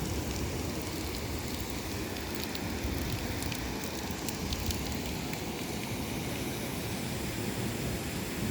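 Monsoon rain falling hard: a steady rushing noise with scattered sharp drop ticks.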